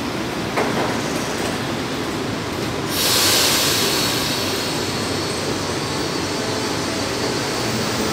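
São Paulo Metro subway train at the platform: a click, then a sudden loud hiss of air about three seconds in as its doors are shut, and the train starts to pull away, running steadily.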